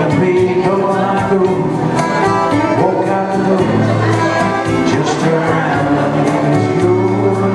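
Live music: a man singing to nylon-string classical guitar with electronic keyboard accompaniment, over a steady beat.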